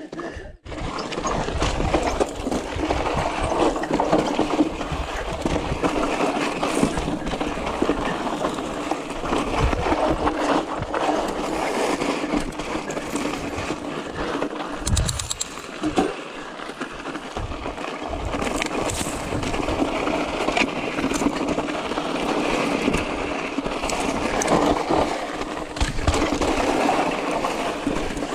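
Yeti SB6 mountain bike riding down a rocky trail: a steady noise of tyres rolling over rock and dirt, broken by knocks and rattles from the bike as it hits bumps.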